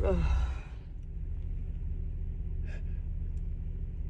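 A woman's gasping in-breath with a falling voiced 'ah' as a sneeze builds, then a short faint sniff nearly three seconds in, over a steady low hum. She is stuffed up with a head cold.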